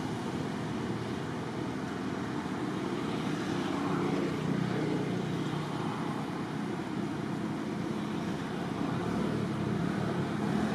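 A steady, low motor-vehicle engine rumble that goes on without a break, with no distinct strokes or calls.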